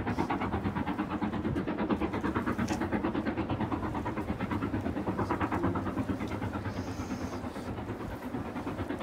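Steam locomotive working across a viaduct, its exhaust chuffing in a rapid, even beat.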